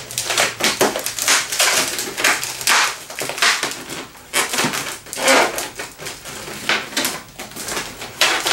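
Latex 260 modelling balloon squeaking and rubbing against itself and the hands as it is squeezed and twisted into bubbles, in a rapid, irregular string of short squeaks.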